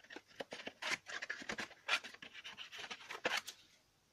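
Scissors cutting a strip from a sheet of white cardstock: a run of short snips with the stiff paper rustling and scraping between them.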